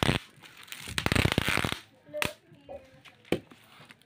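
Clear packing tape being pulled off the roll and pressed onto a cardboard box: a ripping rasp for under a second, about a second in, then a few short taps and crackles as it is smoothed down.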